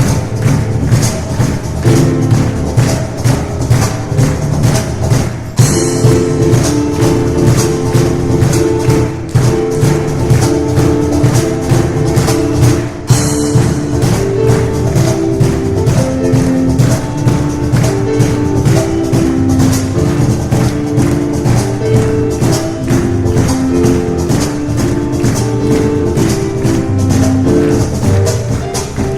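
Piano and cajón duo playing a fast instrumental piece: a busy piano melody over driving, steady cajón strokes, with short breaks in the beat about five and thirteen seconds in.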